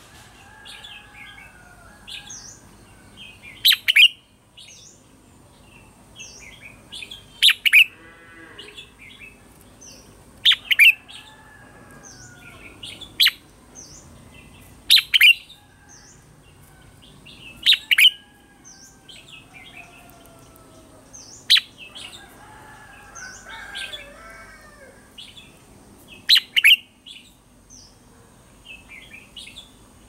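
Red-whiskered bulbul singing: loud, sharp phrases about every three seconds, with softer chirps and whistles between them.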